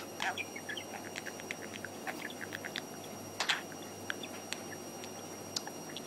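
Budgerigar chattering: a rapid, continuous run of short high chirps and clicks, with one louder, harsher burst about three and a half seconds in.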